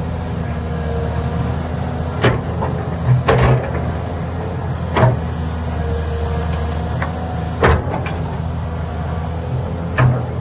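Excavator's diesel engine running steadily, with sharp clanks or knocks about five times, every two to three seconds.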